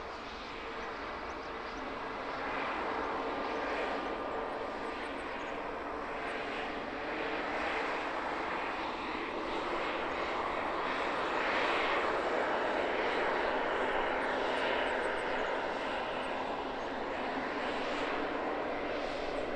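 Arriving jet airliner's engine noise: a steady rushing sound that builds to its loudest about twelve seconds in, then eases a little.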